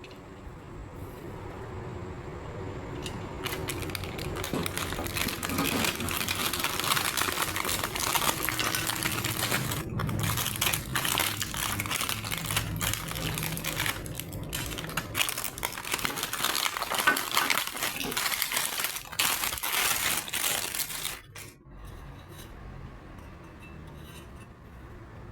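Plastic packaging crinkling and the metal parts of a TV wall bracket clinking as they are unwrapped and handled. It grows busy a few seconds in and stops abruptly near the end.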